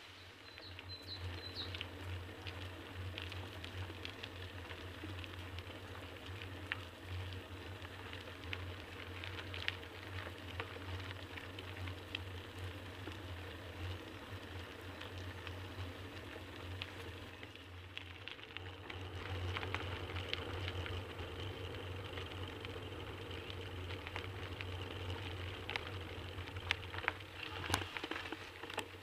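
Bicycle rolling along a gravel and dirt forest road: steady tyre rumble on the surface with frequent small ticks and rattles.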